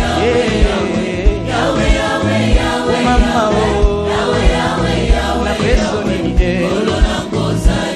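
Congolese gospel worship song in Lingala: voices singing together over a band with a steady drum beat.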